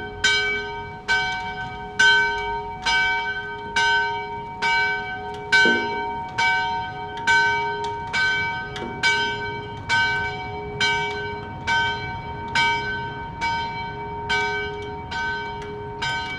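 Church tower bells ringing the noon peal: a steady run of strokes at about two a second, each one's ring hanging on under the next. A deeper, heavier stroke comes in twice.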